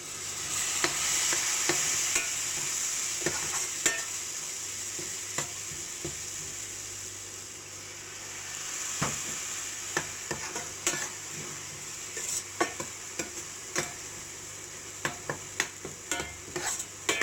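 Onion-tomato masala with spice powders sizzling in hot oil as a splash of water hits the pan, while a spatula stirs it with scraping and sharp taps against the pan. The sizzle is loudest right at the start, eases, and swells again about nine seconds in; the taps come more often near the end.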